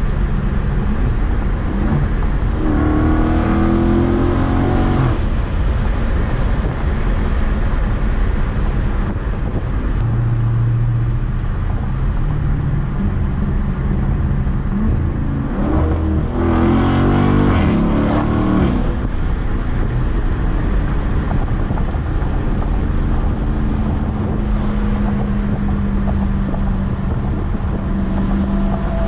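2019 Dodge Charger 392's 6.4-litre HEMI V8 and loud exhaust heard from inside the cabin while cruising, with a steady drone and road noise. The exhaust note rises twice under acceleration, about three seconds in and again a little past halfway.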